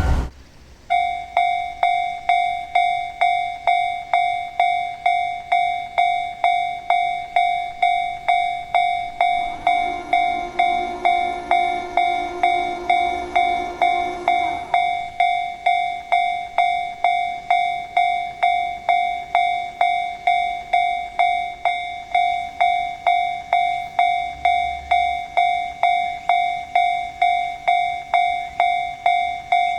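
Japanese railway level-crossing warning bell ringing its kan-kan alarm, a loud ringing strike repeated about twice a second without pause. About ten seconds in, a lower, steady tone with several overtones sounds alongside it for about five seconds.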